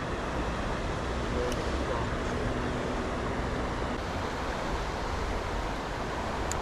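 Steady rush of flowing stream water, with a low wind rumble on the microphone.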